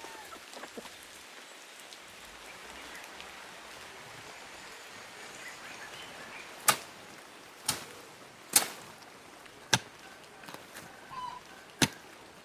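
A long-handled digging tool struck five times into earth and roots, sharp chopping hits about a second apart with a longer gap before the last, over a steady hiss of light rain.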